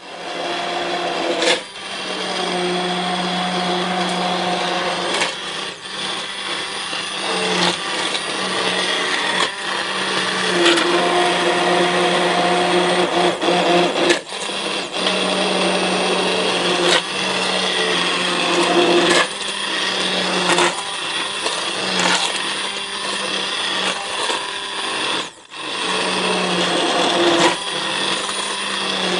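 Handheld immersion blender running in a pot of soft, cooked-down tomatoes, puréeing them into sauce. The steady motor hum dips briefly a few times, once sharply about 25 seconds in.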